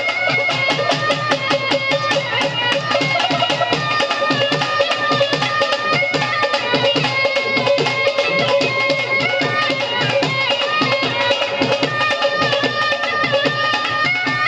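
Music with fast, steady drumming and a sustained melody line over it.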